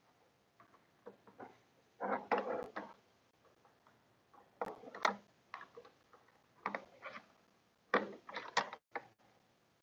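A few short clicks and knocks from a small bench vise and fixture being handled and adjusted while a new workpiece is set in it, spaced a second or two apart.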